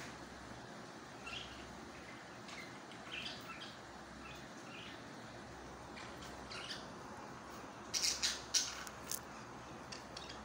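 Parakeet chicks giving short, scattered chirps and squawks, with a louder run of harsh squawks about eight seconds in.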